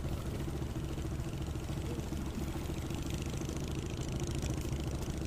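Small wooden fishing boat's engine running steadily at low speed, a constant low hum.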